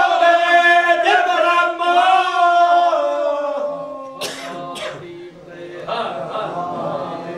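Men's voices chanting a sung devotional line, held notes that die away a little past the middle. Two short sharp sounds follow, then quieter voices.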